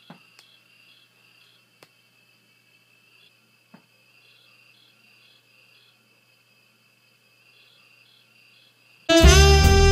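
Faint steady cricket chirping with a few soft clicks. About nine seconds in, loud jazz music with saxophone starts abruptly.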